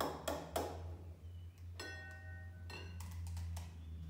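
An egg tapped against a ceramic bowl to crack it: a few light knocks, the one about two seconds in leaving a short ringing tone from the bowl.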